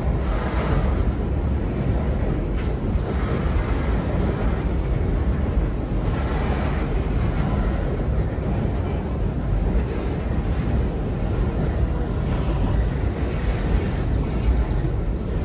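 Freight train of covered hopper cars rolling across a steel trestle: a steady, loud rumble of wheels on the rails, with the noise swelling briefly now and then as trucks pass over the bridge.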